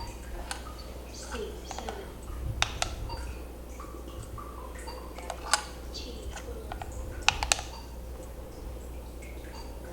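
Sharp clicks and taps at irregular intervals, some falling in quick pairs or threes, over a low steady hum.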